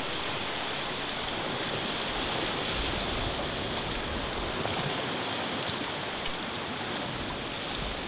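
Sea washing against a rocky shore: a steady rushing wash of surf without distinct breaks.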